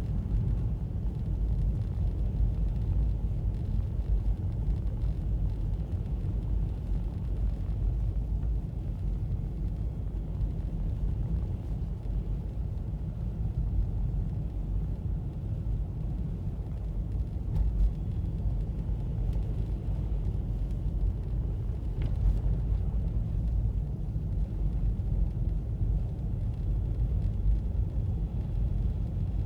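Car driving on a snow-covered road, giving a steady low rumble of engine and tyres.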